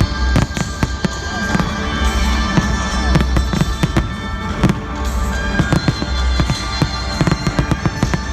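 Fireworks going off in rapid, dense bangs and crackles throughout, over loud music with sustained notes and a deep bass that swells every second or two.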